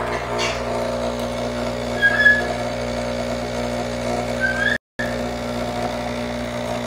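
Nescafé Dolce Gusto capsule coffee machine's pump buzzing steadily as it brews coffee into a mug. There are two short high squeaks, about two seconds and four and a half seconds in, and the sound cuts out for a moment just before five seconds.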